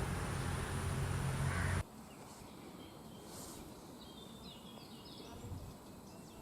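Steady outdoor noise with a low hum that cuts off abruptly about two seconds in, leaving a quiet background with faint, short bird chirps.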